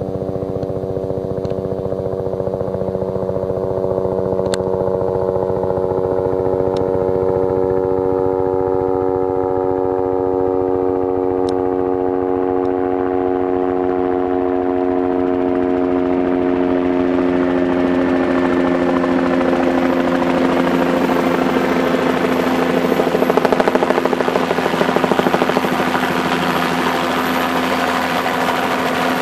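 Bell 206 helicopter approaching to land: a steady rotor and turbine drone that grows louder as it comes close, its pitch easing slightly down. A thin high turbine whine comes in during the second half.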